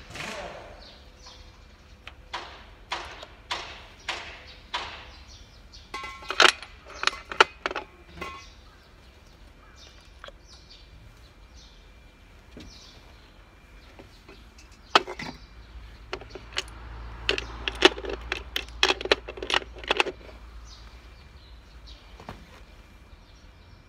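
Hand tools clinking and knocking on the metal of a Nissan GE13 diesel engine's opened cylinder head during injector removal: scattered sharp metallic clicks, one group in the first eight seconds and another from about fifteen to twenty seconds in.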